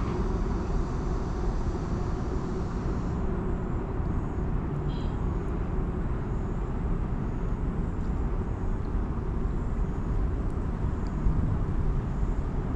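Steady low rumble of vehicle traffic, even throughout, with nothing sudden standing out.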